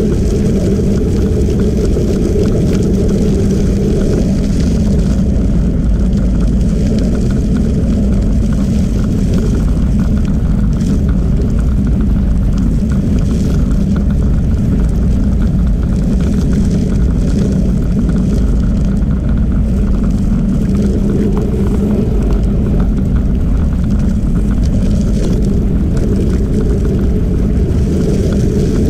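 Steady low rumble of wind on the microphone and tyres rolling over gravel, from a camera moving at about 13–14 mph along a gravel trail, with the audio played at double speed.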